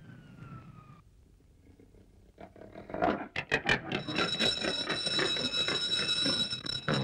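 A short falling whistle-like tone at the start. About three seconds in, a run of rapid strikes begins and swells into a continuous loud ringing like an alarm clock bell: a cartoon alarm-clock sound effect.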